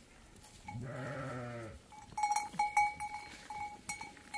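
A sheep bleats once, a wavering call about a second long. Then sheep bells clank again and again as the flock moves about.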